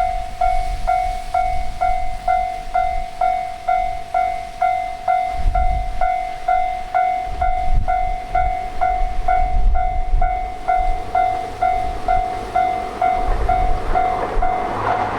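Japanese railroad crossing alarm ringing its repeated 'kan-kan' bell tone, about two strikes a second. Near the end the noise of an approaching train rises under it.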